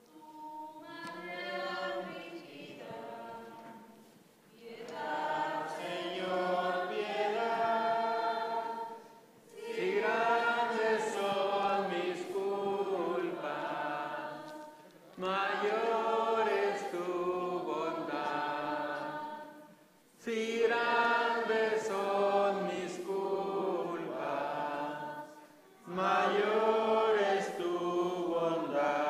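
Congregation singing a hymn together, in phrases of about five seconds with a short breath pause between each.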